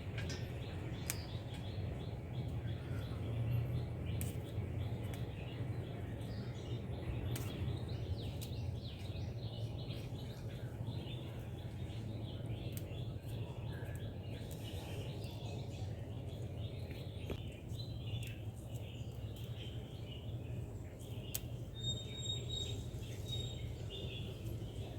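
Small birds chirping again and again over a steady low background hum, with occasional faint clicks.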